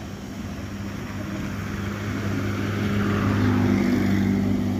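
Baldwin 2-8-0 narrow-gauge steam locomotive approaching slowly: a steady low hum with a hiss that swells, growing louder to a peak about three to four seconds in.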